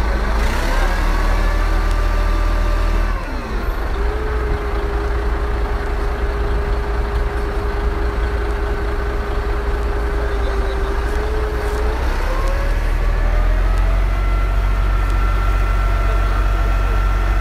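Crane engine running under load while hoisting a heavy crate, with a deep rumble. It runs at higher revs for the first few seconds, drops to a steady lower speed about 3 seconds in, then revs up again around 12 seconds in and holds there.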